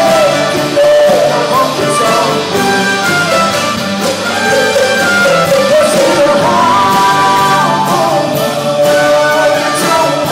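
A band playing music: a melody line with wavering, sustained notes over a continuous backing.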